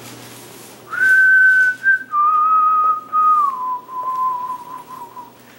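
A person whistling close by, three descending notes: a high note starting about a second in, a longer lower one, then a slide down to a long, slightly wavering lowest note.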